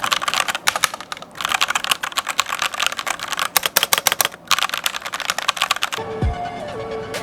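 Rapid typing on a Fantech MK853 mechanical keyboard with red linear switches: a fast run of key clicks with two brief pauses. The typing stops about six seconds in, and music with steady tones begins.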